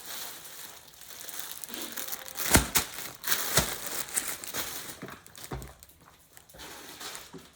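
Packaging being handled and pulled about, crinkling and rustling, with a few sharp knocks, the loudest about two and a half and three and a half seconds in.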